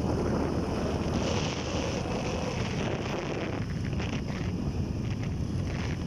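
Wind buffeting the microphone while travelling along in a moving vehicle: a steady rushing noise with a low rumble underneath.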